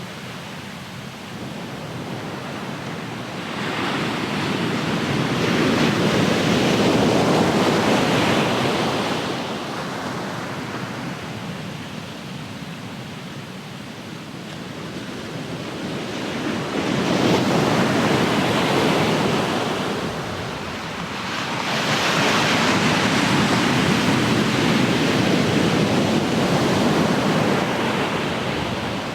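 Ocean surf: a steady rush of waves that swells three times, about four seconds in, again near seventeen seconds, and from about twenty-two seconds, falling back between swells.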